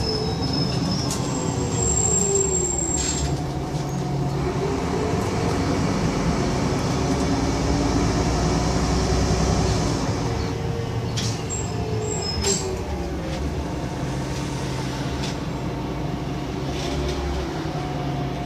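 Interior noise of a Solaris Urbino 12 city bus under way: engine, drivetrain and tyre noise whose pitch rises and falls several times as the bus speeds up and slows, with a few short rattles and clicks from the cabin fittings.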